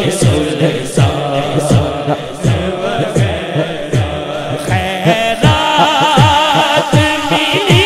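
Naat-style devotional singing: one male voice sings a long, wavering line into a microphone over deep beats, each dropping in pitch, about two a second. The voice grows louder and higher about five seconds in.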